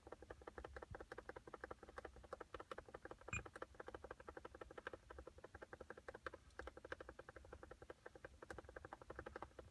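Faint, rapid, even clicking at about ten clicks a second, with one louder click about three and a half seconds in.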